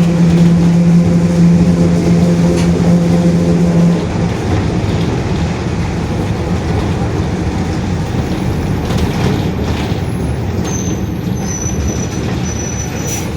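Mercedes-Benz OF-1721 BlueTec 5 city bus heard from inside while moving, with a steady droning growl from the differential that drops away about four seconds in, leaving the rumble of the running bus. A faint high squeal comes and goes near the end.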